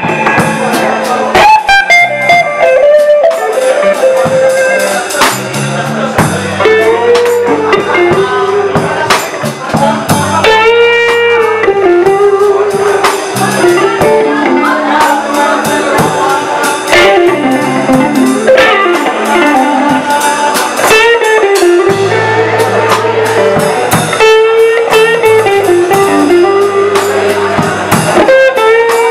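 Live blues band playing, led by a Stratocaster-style electric guitar whose solo notes bend up and down and waver, over bass guitar and drums.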